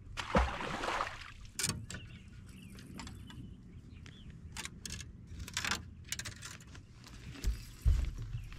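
A splash as a released striped bass lands in the lake in the first second, then scattered clicks and knocks of handling on an aluminium boat deck, with a couple of low thumps near the end.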